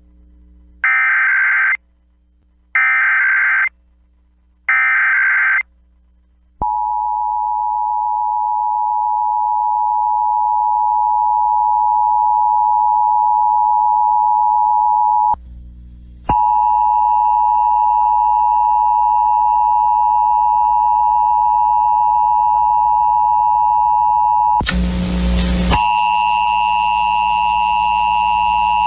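Emergency Alert System test tones: three short bursts of warbling SAME header data, about a second each with a second's gap between, followed by the steady two-tone EAS attention signal. The attention tone breaks off for about a second midway, comes back with a higher tone added, and a short burst of noise cuts across it near the end.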